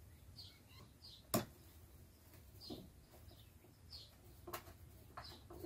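Small birds chirping in the background, short falling chirps every second or so. A sharp knock of wood on wood about a second and a half in, as the wooden crossbar is set on the pine tabletop, and a few lighter knocks near the end.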